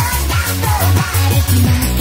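Nightcore remix of an Italian eurobeat song: sped-up, pitched-up electronic dance music with a fast, steady kick drum over a sustained bass line.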